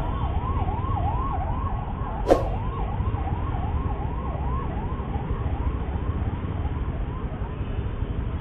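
An electronic siren yelps, its pitch swooping about three times a second and fading gradually, over the low rumble of idling traffic at a signal. There is one short sharp knock about two seconds in.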